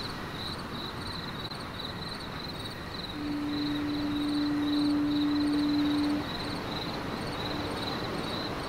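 Steady wind and engine noise on a ferry's open deck, with a high chirp repeating about twice a second throughout. A steady low tone sounds for about three seconds in the middle.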